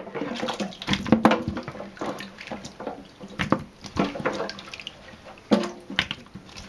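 Water splashing and sloshing as handfuls of black walnuts are scooped out of a basin of dirty rinse water, with irregular sharp knocks as the nuts land in the empty stainless steel sink basin beside it.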